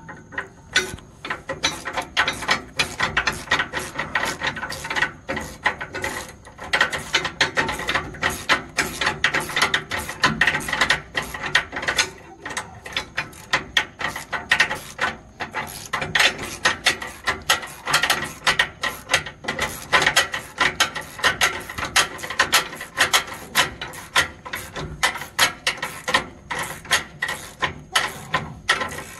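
Hand socket ratchet clicking in quick runs of strokes, with short pauses between runs, as bolts are run into the bumper mounting bracket on a truck frame.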